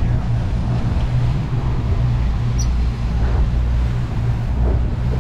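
Twin outboard motors running steadily while trolling, a continuous low drone, with wind and the hiss of the boat's wake over it.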